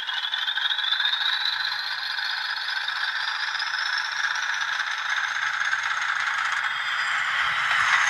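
Sound-fitted Bachmann OO model Class 40 diesel locomotive pulling away, its speaker playing the engine and turbocharger's whistle rising in pitch as it powers up. It gets louder near the end as the loco passes close, with the model's mechanism and wheels rattling on the track.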